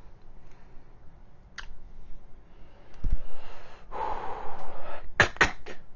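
A person breathing out heavily, like a sigh, about four seconds in, followed near the end by a quick run of four or five sharp clicks; a single click and a low thump come earlier.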